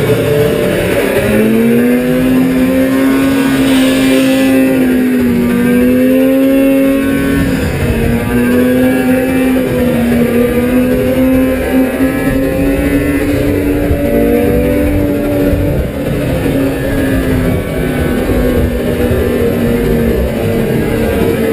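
Racing snowmobile engine running hard at high revs, its pitch wavering up and down with the throttle through the corners. A second sled's engine runs close alongside in the middle.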